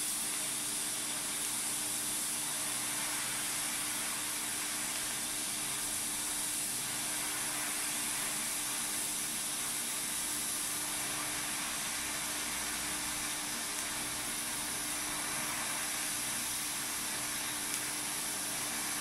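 TIG welding arc burning steadily while a surfacing bead is laid: a smooth, even hiss with a low steady hum under it.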